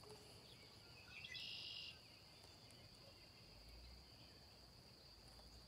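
Near silence: a faint, steady, high-pitched insect drone, with one short, louder high call lasting about half a second around a second and a half in.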